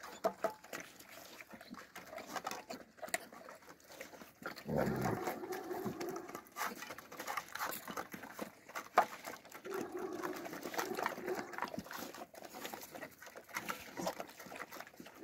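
Alabai puppies eating from metal bowls: wet chewing and lapping with frequent small clicks and scrapes of muzzles and food against the bowls. A low, drawn-out sound of about a second and a half is heard twice along with it.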